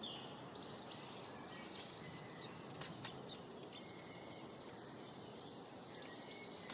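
A chorus of many small birds chirping and singing together: dense, quick, high calls overlapping one another over a steady low hiss of background noise.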